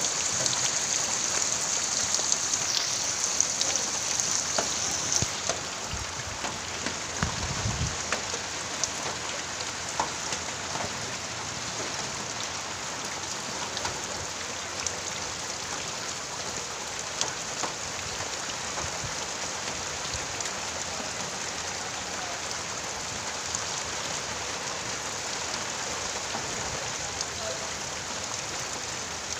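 Heavy typhoon rain falling steadily, a dense patter of drops. It is a little louder for the first five seconds or so, then settles to a slightly lower, even level.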